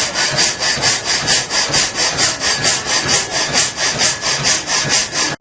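Water-powered up-and-down sawmill's reciprocating frame saw cutting through a log, a loud, regular rasp repeated stroke after stroke. The blade cuts only on the downstroke, while a cam feeds the log carriage forward in small jumps.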